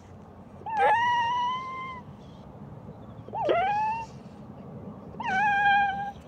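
A puppy stuck in tar whining in distress: three long, high cries about two seconds apart, each rising and then holding its pitch, the first the longest.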